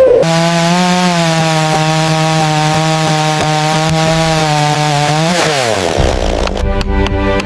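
Two-stroke chainsaw running at high revs with a steady whine. About five seconds in, its pitch drops sharply and it goes rougher and lower for a couple of seconds before picking back up.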